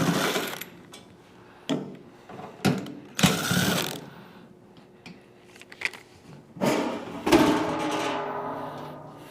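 A power screwdriver running in short whirring bursts, backing screws out of the heater's sheet-metal housing; the last burst is the longest and fades out.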